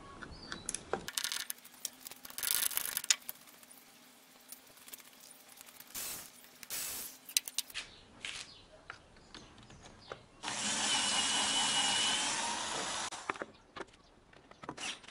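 Cordless drill-driver running steadily with a whine for about three seconds, a little past the middle, undoing the intake manifold fasteners on an engine cylinder head. Before it come scattered clinks and rattles of tools on metal.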